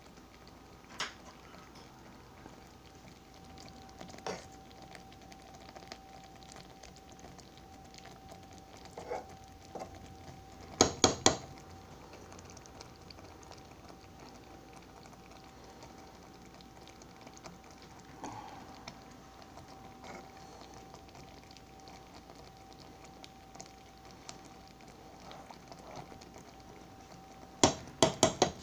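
Chicken breasts in a cream of chicken soup and sour cream sauce simmering in a skillet, with faint, scattered bubbling and popping over a steady faint hum. Twice, about eleven seconds in and again near the end, a quick cluster of three or four sharp clicks or knocks stands out as the loudest sound.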